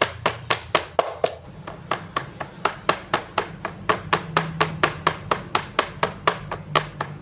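Large kitchen knife chopping pork on a wooden cutting board: a steady run of knocks, about four a second, as the meat is minced.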